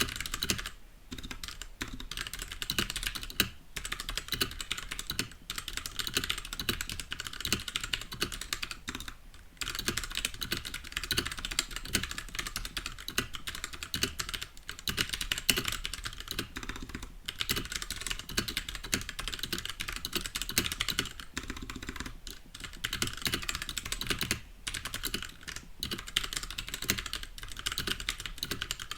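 Continuous typing on a Royal Kludge RK68 65% mechanical keyboard with TTC brown switches. It is a dense run of key clacks with a few short pauses.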